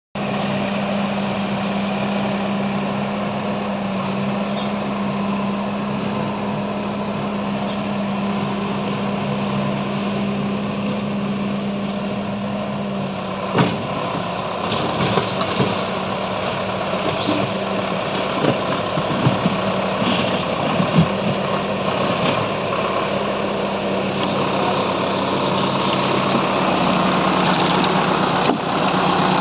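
Backhoe loader's diesel engine running with a steady hum. About halfway through, irregular clanks and knocks start over the engine, which grows louder near the end.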